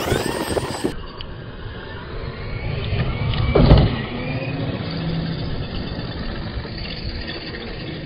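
Electric RC monster truck (Traxxas XRT) driving hard: its brushless motor whines rising in pitch as it speeds up, over tyre and ground noise. About three and a half seconds in there is one loud thump as the truck tumbles.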